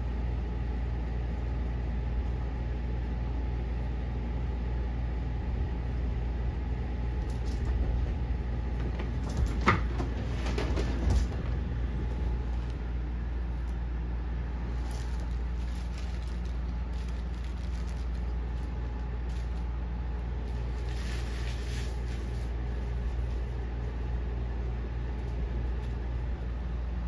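Steady low hum of room background noise, with a few short knocks about ten seconds in.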